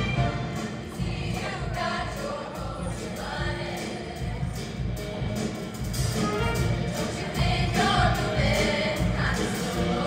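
High-school show choir singing in harmony over instrumental accompaniment with a steady beat.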